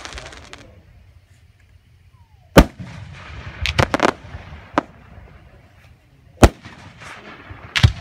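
Aerial firework shells bursting with loud booms: one about two and a half seconds in, a quick run of three or four reports around four seconds, a smaller pop near five, and two more booms near six and a half seconds and near the end. A crackling hiss from the previous burst fades out in the first half second.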